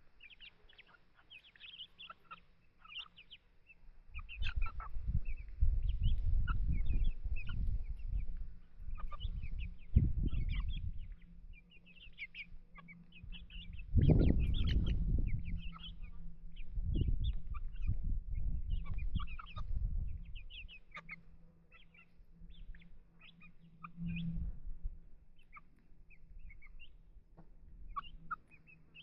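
Light Brahma chickens clucking with many short, high calls scattered throughout. A loud low rumble comes and goes from about four seconds in to about twenty, and again briefly near twenty-four seconds.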